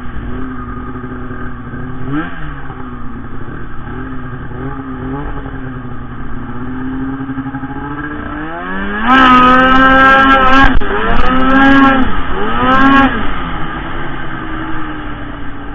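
Arctic Cat M8000 snowmobile's two-stroke engine running steadily, then revving hard about nine seconds in. It surges three times with quick throttle dips between, then settles back to a steady run.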